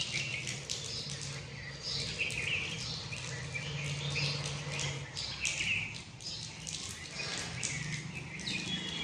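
Birds chirping with many short calls, over a faint low steady hum.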